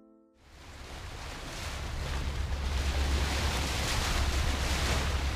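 Sea and wind ambience fading in about half a second in: a steady rush of wind and waves, with a low rumble of wind on the microphone.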